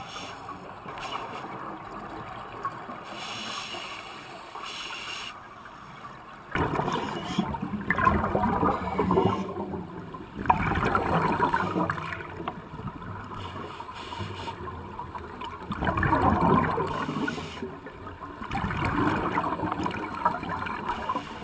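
Scuba regulator exhaust underwater: exhaled air bubbling out in loud bursts of a second or two, every few seconds from about six seconds in, over a quieter steady hiss.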